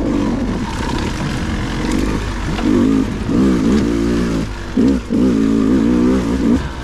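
Dirt bike engine revving up and falling back over and over in short bursts of throttle.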